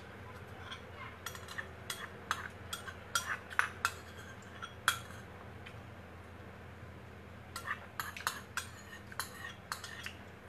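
Metal spoon clinking against a small ceramic bowl while eating, in quick scattered clinks with a pause of a couple of seconds in the middle.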